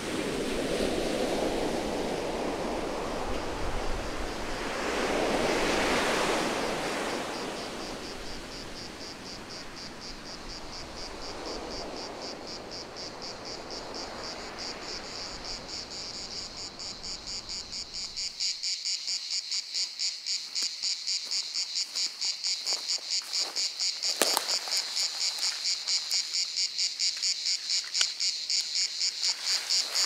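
Atlantic surf washing in, swelling twice, then dying away until it cuts off about two-thirds of the way in. A steady high chirping of insects takes over, pulsing about three or four times a second, with a couple of sharp snaps near the end.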